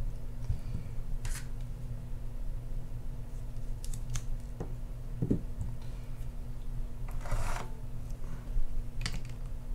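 Small metallic clicks and scrapes of a screwdriver and hand tools working the handle-lock screw and handle nut on an Abu Garcia Ambassadeur 6500CL baitcasting reel, with a longer scrape or rattle about seven seconds in.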